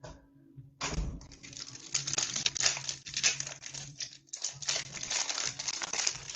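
Crinkling and tearing of a trading-card booster pack's foil wrapper being opened and handled, starting about a second in with a brief lull around the middle.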